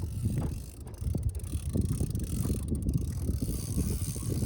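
Wind buffeting the microphone outdoors, an uneven low rumble that rises and falls in gusts.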